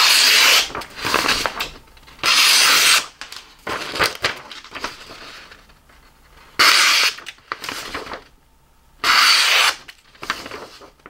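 Sheet of paper being sliced with a Cold Steel Voyager XL drop point folding knife: about five hissing cuts, each under a second long, with pauses between them.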